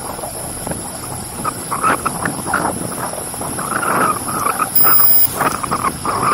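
Wind rushing over a bicycle-mounted camera's microphone while riding, with irregular short calls in the background. About five seconds in comes a short high electronic beep.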